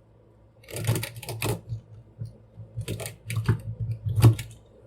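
Plastic clicks and knocks from a large toy figure being handled and posed by hand, in three short clusters: about a second in, around three seconds, and just past four seconds.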